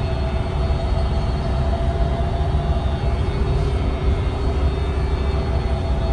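VDL Citea SLFA-180 Hybrid articulated bus running, a steady low rumble with a steady whine made of two even pitches above it.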